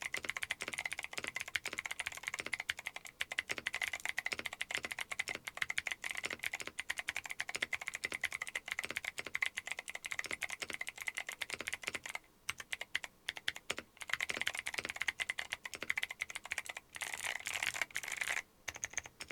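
Fast typing on a mechanical keyboard fitted with Akko Creamy Cyan clicky switches: a dense stream of sharp, crisp clicks. About twelve seconds in, it thins to scattered keystrokes for a moment, then picks up again.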